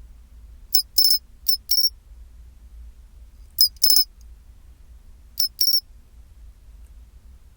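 Pine cricket (matsumushi, Xenogryllus marmoratus) singing its 'chin-chiro-rin' call: short, high, clear chirps in clusters of two to four, repeated three times about two seconds apart.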